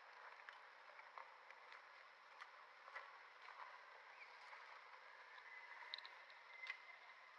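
Near silence: faint background hiss with scattered small clicks and taps.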